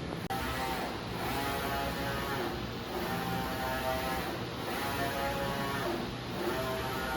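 UV flatbed printer's print carriage running back and forth across the glass, its drive motor whining in passes that swell and fade about every one and a half to two seconds.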